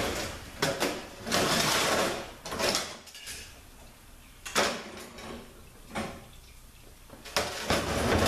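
Metal parts of a Chrysler 604 transmission being handled during teardown. Two scraping, sliding noises come in the first three seconds, then a few separate sharp knocks and clinks, one more near the end.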